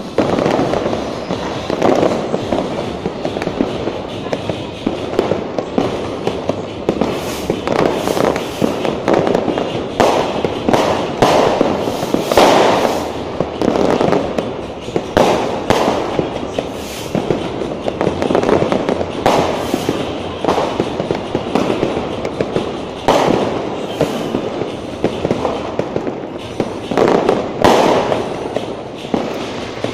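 Many fireworks exploding without pause: overlapping bangs and crackling, with sharper loud reports every second or so, loudest around the middle.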